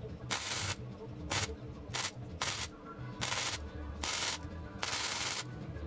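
Wire-feed (MIG) welder tack- and stitch-welding a pressed-steel engine sump pan: the arc crackles in about seven short bursts, each a fraction of a second, with brief pauses between.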